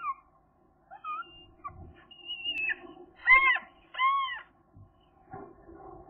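Gull calling at the nest: a few short, soft notes and a thin high whistle, then two loud calls a little over three and four seconds in, each rising and then falling in pitch.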